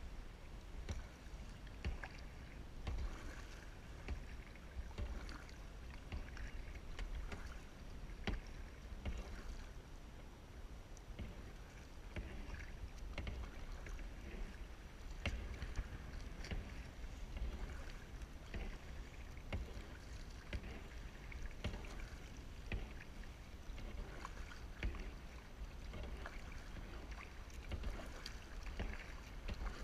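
Kayak paddle strokes: the double-bladed paddle dipping and splashing into the water on alternate sides, with drips and small knocks, over a steady low rumble.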